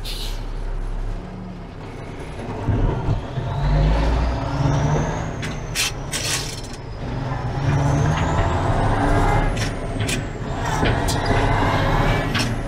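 Diesel engine of a 1986 GMC General tri-axle dump truck, heard from inside the cab as it pulls through the gears, dipping and picking up again between shifts. A whine rises and falls with engine speed, and there are a few brief hisses of air.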